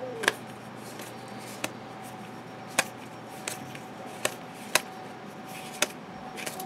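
2012 Score football trading cards flipped through by hand one at a time, each card snapping off the stack: about seven sharp clicks spaced irregularly, over a faint steady hum.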